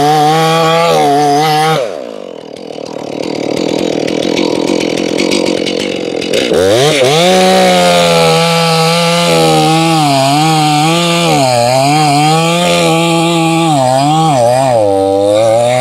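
Stihl MS461 75cc two-stroke chainsaw rip-cutting along a log's grain (noodling). It runs at full throttle, drops off and goes quieter about two seconds in, then revs sharply back up at about six and a half seconds and cuts on, its pitch dipping and recovering as the chain loads in the wood.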